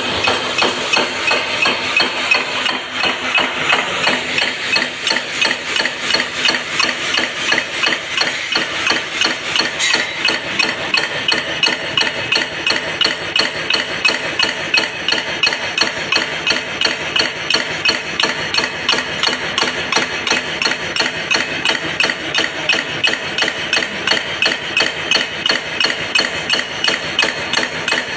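Rhythmic knocking at an even pace of about three strikes a second, continuing unbroken.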